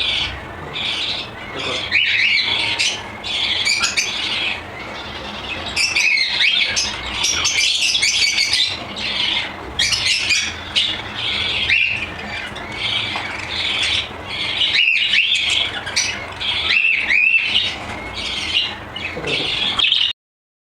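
Cockatiel chicks squawking over and over in harsh, high calls, the begging calls of chicks being hand-fed. The calls cut off suddenly near the end.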